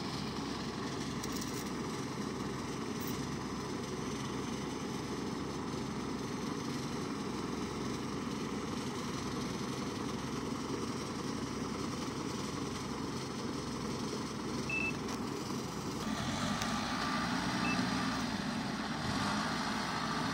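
Engines of farm machinery in a muddy rice paddy running steadily, as tractors get ready to pull out a stuck combine harvester. About sixteen seconds in, an engine grows louder.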